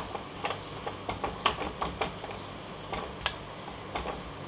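A spoon clicking and scraping against a nonstick kadai while mashing and stirring potato stuffing: irregular light taps, a few a second.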